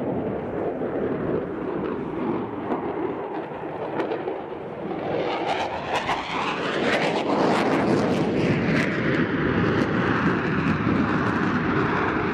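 Jet engine noise from a Lockheed Martin F-22 Raptor's twin Pratt & Whitney F119 turbofans as it manoeuvres overhead. It grows louder about halfway through, with a sweeping, phasing rush as the jet passes.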